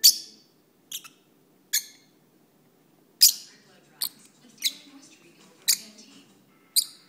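Peach-faced lovebirds giving short, sharp, high-pitched chirps, about eight of them at uneven intervals, with a pause of about a second after the first three.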